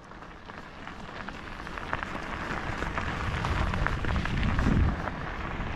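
Bicycle tyres crunching over a gravel road: a dense crackle of small clicks with wind rumbling on the microphone, growing louder through the first five seconds.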